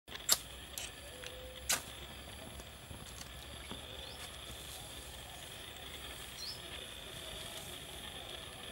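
Ferrocerium rod scraped with a metal striker to throw sparks into dry grass tinder. Two sharp scraping strikes about a second and a half apart near the start, with a couple of lighter scrapes, over a faint steady high hiss.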